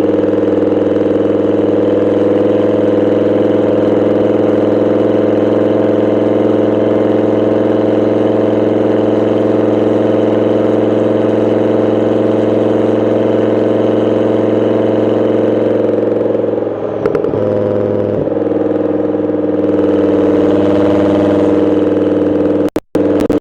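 Volvo S70's inline five-cylinder engine running at a steady speed, its note holding one pitch, with a brief waver about two-thirds of the way through and a momentary cut near the end.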